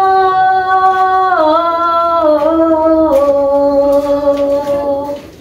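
A woman singing a slow worship song without clear words, holding long notes that step down in pitch three times and fade near the end.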